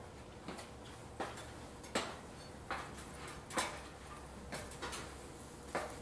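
Aluminium extension ladder knocking and clanking under a person's steps as he climbs it, a sharp knock roughly every second, about eight in all.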